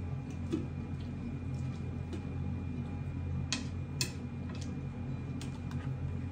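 Scattered light clicks and taps of utensils against food containers as dog food is portioned out, the two sharpest about three and a half and four seconds in, over a steady low hum.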